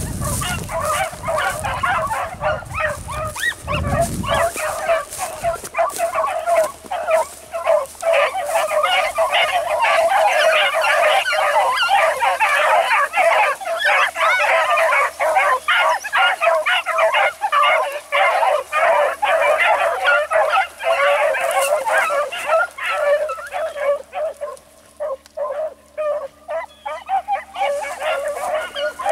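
A pack of beagles in full cry on a chase, many hounds baying and yelping over one another at once. The cry thins out and breaks up a few seconds before the end, then picks up again.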